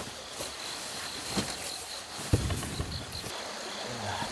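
Steady high trill of night insects such as crickets, stopping about three seconds in. It is broken by a few soft knocks and one louder thud a little past two seconds in, as camp gear is handled.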